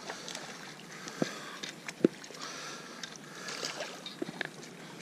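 Water splashing and a spinning reel being cranked as a hooked pickerel is reeled in, with two sharp knocks about one and two seconds in.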